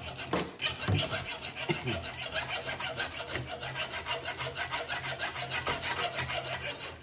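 Hacksaw cutting through the metal rear axle of a Wilesco model steam traction engine, in quick, even back-and-forth strokes, several a second, that stop near the end.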